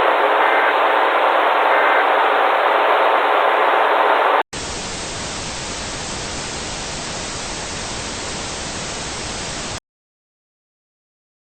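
Radio-band static hiss with faint short data bursts in it, the last Emergency Alert System end-of-message tones. About four and a half seconds in it cuts abruptly to a quieter, wider TV-static hiss, which stops dead about ten seconds in.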